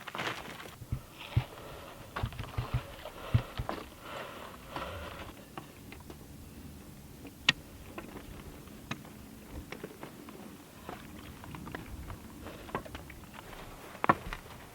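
A hiker's footsteps climbing a slope: irregular crunches, scuffs and knocks underfoot, with a sharper knock about seven seconds in and another near the end.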